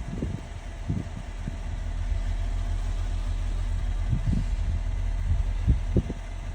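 Low, steady engine rumble like a diesel idling, with a few short low thumps.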